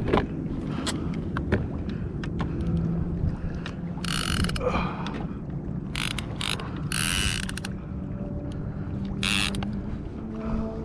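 Penn Fathom lever-drag conventional fishing reel being worked during a fight with a yellowfin tuna: a steady ratcheting, geared mechanical sound with many short clicks, and a few brief hissing bursts about four, seven and nine seconds in.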